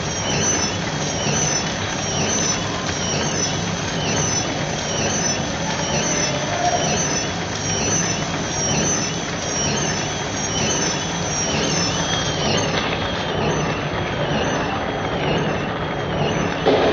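Sweet packing machine running: a steady mechanical hum with a fast, regular, repeating clatter from its wrapping and sealing cycle as packets move along the conveyor. There is a short, louder bump near the end.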